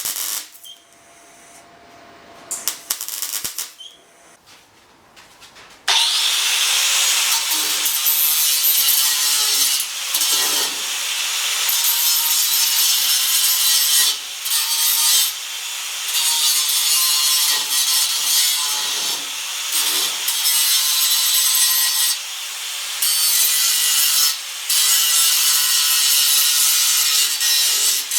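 Power grinder working steel car body panel, grinding filled rust-repair welds flat. A steady abrasive hiss over the motor's hum starts about six seconds in, with brief dips where the disc comes off the metal. Before that come some quieter knocks and clatter.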